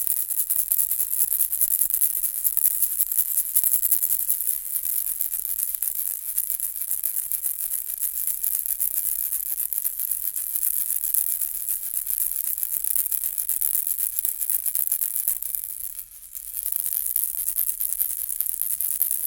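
Baby rattle toy shaken continuously: a dense, fast, high-pitched rattling of loose beads, breaking off briefly about three-quarters of the way through before starting again.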